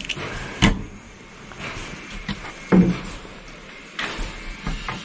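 A few separate knocks and bumps, the loudest a dull thump about three seconds in.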